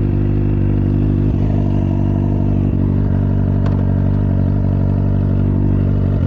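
Kawasaki sport bike's engine idling steadily through a Van Diemen aftermarket exhaust, already warm.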